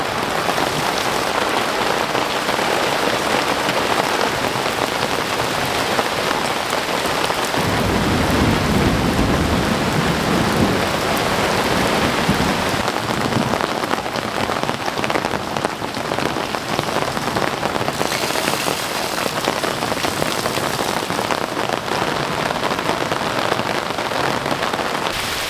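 Steady rain falling, with a low rumble for a few seconds about a third of the way in.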